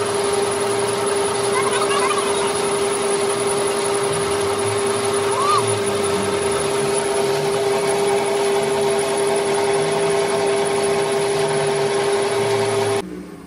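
Metal lathe running, its motor and gearing humming steadily with a high whine as a steel excavator bucket pin turns under the cutting tool; two brief squeaks come early and mid-way, and the lathe is switched off near the end, the hum cutting out abruptly.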